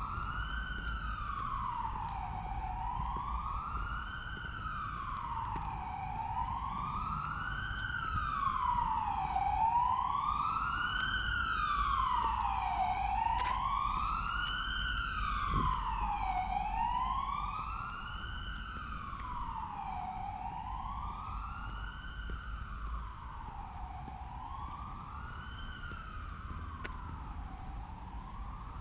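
Emergency vehicle siren wailing, rising and falling in pitch about every three and a half seconds, growing louder toward the middle and then fading.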